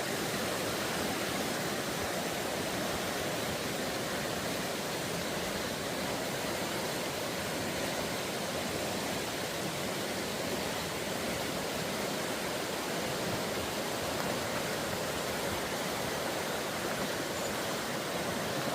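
Steady rush of fast-flowing water, swollen after heavy rain.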